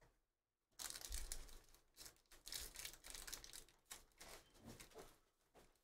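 A foil trading card pack being handled and torn open by hand: soft, irregular crinkling and tearing starting just under a second in.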